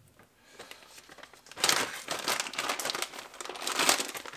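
Plastic bag and wrapping crinkling as a new bearing is pulled out and unwrapped by hand, starting about a second and a half in and going on in uneven rustles.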